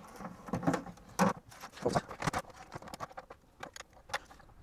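Irregular clicks and knocks of small plastic parts being handled as a LeapFrog kids' tablet is put back together after a USB port repair.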